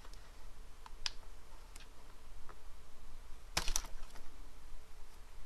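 Scattered light plastic clicks and taps as fingers work the keyboard ribbon cable free of its connector inside an Acer Aspire One netbook, with a sharper cluster of clicks a little past halfway.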